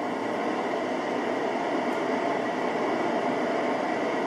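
Steady rushing noise like hiss or static, even and without any distinct events.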